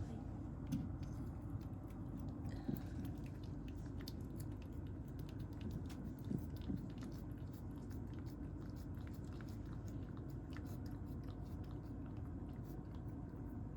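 A cat chewing dry kibble: many small, irregular crunches and clicks over a steady low hum.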